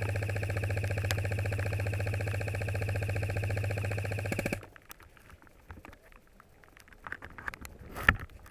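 Airsoft electric gun firing one long sustained full-auto burst, a rapid buzzing stream of shots that cuts off suddenly about four and a half seconds in. After it, only scattered light clicks and a sharp knock near the end.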